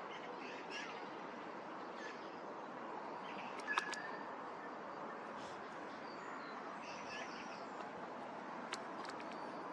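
Birds chirping sporadically over a steady outdoor hiss, with a few sharp clicks, the loudest a little under four seconds in.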